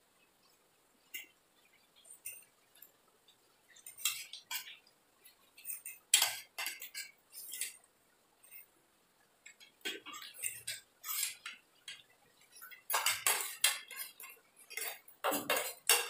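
Metal forks and spoons clinking and scraping on ceramic plates in short, scattered strokes. The strokes get much busier near the end as the nearly empty plates are scraped clean.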